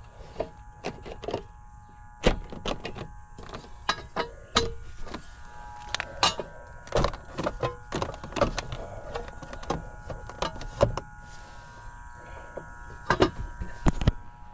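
Irregular knocks and clicks from gear being handled, over a steady hum; the loudest knocks come near the end.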